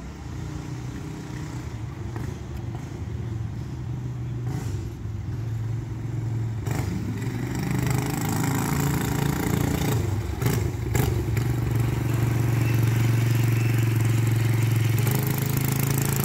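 Mini bike's small engine running and drawing closer, growing steadily louder, with a short rev about ten seconds in.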